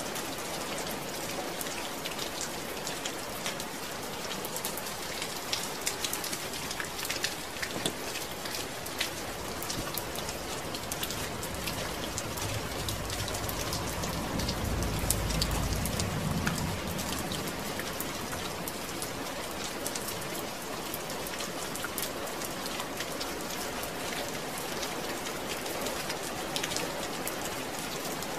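Steady rain falling, with a dense patter of individual drops on a surface. A low rumble swells and fades about halfway through.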